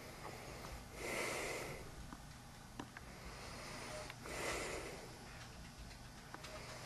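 A person breathing loudly and noisily, one drawn breath about every three seconds, over a low room hum.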